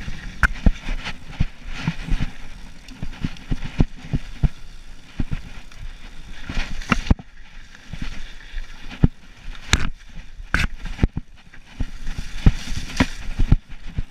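Mountain bike clattering and knocking over rough ground, with irregular sharp knocks and rattles over steady wind noise.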